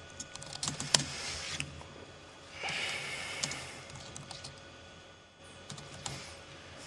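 Typing on a laptop keyboard, heard as scattered key clicks in short runs. A short breathy rush of noise comes near the middle.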